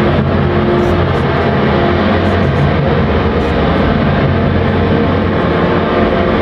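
Loud, dense electronic drone from a live synthesizer performance: a steady low hum with several held tones layered over a wash of noise, with no beat.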